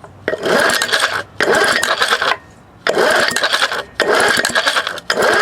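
A 1970 Johnson 4 hp outboard being cranked over by hand, about five quick turns of roughly a second each with a dense clicking rattle. This is a spark check without fuel after cleaning the ignition points.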